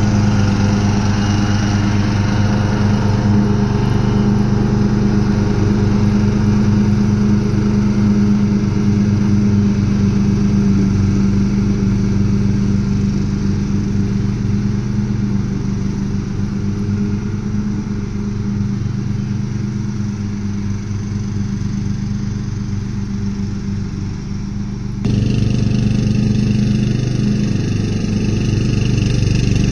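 Castlegarden XT190HD lawn tractor's engine running steadily with a low, even hum. About 25 seconds in the sound abruptly gets louder and brighter.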